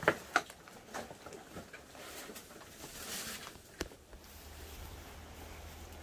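A few light knocks and clicks, the loudest right at the start and another near four seconds, then a faint, low, steady hum from about four seconds in.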